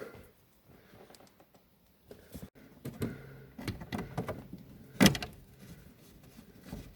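Clicks, rattles and knocks of dashboard trim being handled and fitted back into place, with one sharp loud knock about five seconds in.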